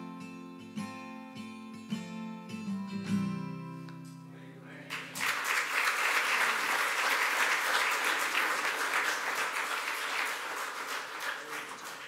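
Acoustic guitar strumming the closing chords of a song, the last chord left ringing; about five seconds in, the congregation breaks into applause, which eases off near the end.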